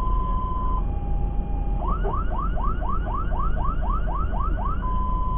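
Fire engine's siren sounding a two-tone high-low call, then switching about two seconds in to a fast run of rising whoops, about four a second, for some three seconds, before going back to the two-tone. The truck's engine and road rumble run underneath, heard from inside the cab.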